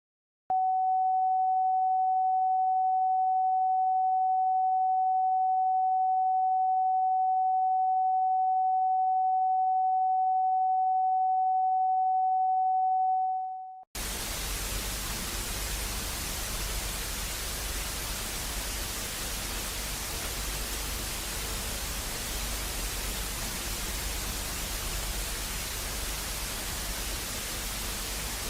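A single steady electronic alert tone, held for about thirteen seconds before fading out, then an abrupt switch to loud, even static hiss.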